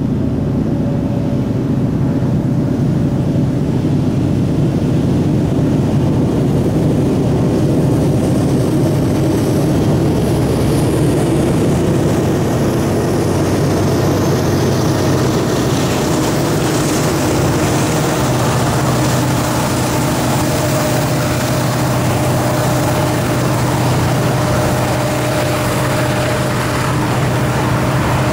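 Several diesel-electric freight locomotives approaching and passing, their engines running with a steady low drone. Wheel and rail noise builds from about halfway through as the lead units go by.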